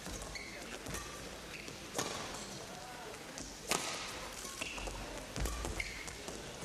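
Badminton rally: sharp racket strikes on the shuttlecock every second or two, the loudest about two seconds in and again near four seconds. Short squeaks from shoes on the court floor and a low crowd murmur run between the hits.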